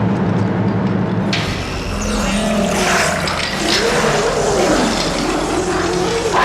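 Water rushing and bubbling in a drowning tank, rising over a low steady hum about a second and a half in. Pitched sounds glide up and down across it.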